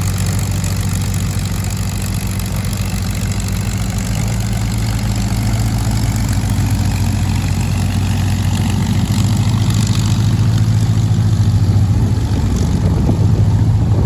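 De Havilland Mosquito's twin Rolls-Royce Merlin V12 engines running steadily, growing slightly louder over the last few seconds.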